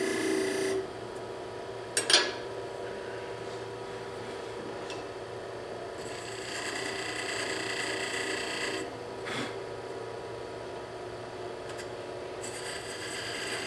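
A multi-tipped beading tool scraping beads into the face of a spinning wooden disc on a wood lathe, in three cutting passes of about two seconds each with quieter gaps between. Two short, sharp clicks fall in the gaps, the first, about two seconds in, the loudest sound of all.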